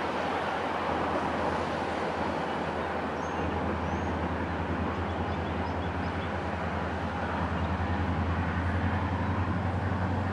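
Road traffic passing, over a steady low engine rumble that grows stronger about a third of the way in and again near the end.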